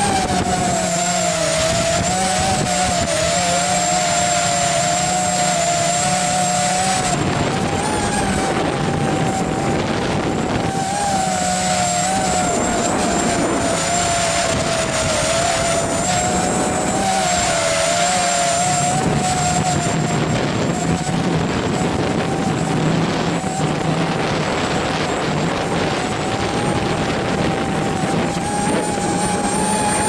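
ZMR250 racing quadcopter's four brushless motors and propellers whining loudly, heard from the camera mounted on the quad, the pitch wavering up and down as the throttle changes. Wind buffets the microphone underneath.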